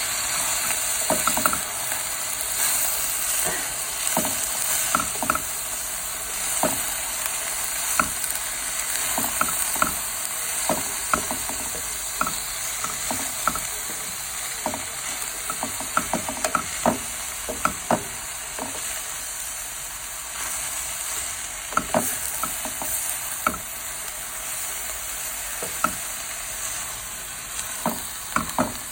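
Vegetables stir-frying in a hot pan: a steady sizzle with irregular clicks and scrapes of a spatula stirring and tapping against the pan.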